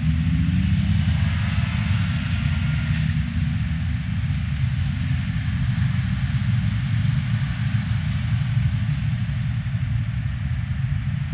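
Steady low rumble of motor vehicle engines and road noise from vehicles on the move, with a brief rise in pitch in the first second.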